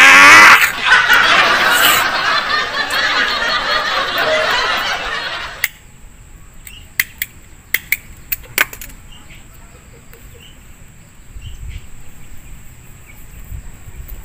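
A loud, harsh outburst of noise for the first five seconds or so, cut off abruptly. Then several sharp clicks as a cigarette lighter is struck a few times.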